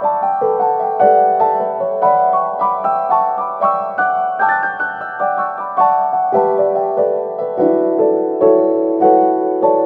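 Background piano music: a gentle melody of notes struck about twice a second over held chords.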